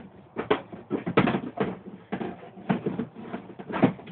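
Irregular knocks and scrapes, a phone bumping against a plastic grate and rustling through wood shavings, about a dozen in a few seconds.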